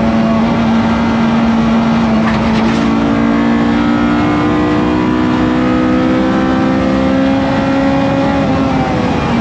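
Honda B18C 1.8-litre DOHC VTEC four-cylinder in a Civic EF race car, heard from inside the cabin at high revs. The engine note holds steady for the first few seconds, then climbs slowly as the car accelerates, and dips briefly near the end.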